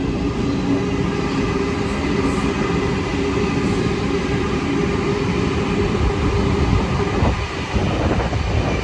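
Eight-car Tangara electric train passing close by: an even rumble of steel wheels on the rails with a steady motor hum. It thins out about seven seconds in as the rear cars go by.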